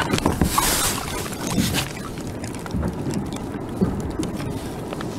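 Water sloshing and lapping against a fishing kayak's hull, with small knocks and clicks from the boat and gear, and a hissing splash from about half a second to two seconds in.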